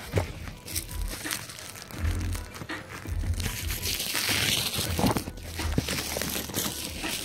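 Plastic packaging wrap crinkling and crackling as it is pulled and worked off a parcel. The rustling gets louder and denser for a second or so about halfway through.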